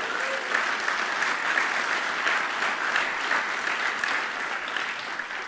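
Audience applauding: dense clapping from a large crowd, easing off a little near the end.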